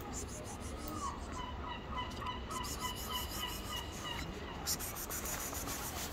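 A bird calling a quick series of short, repeated notes for about three seconds, over a steady low background rumble, with a few light clicks near the end.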